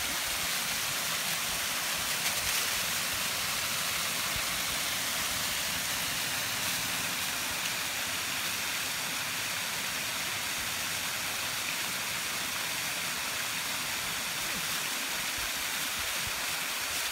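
Steady rushing of water from a creek and its small waterfall.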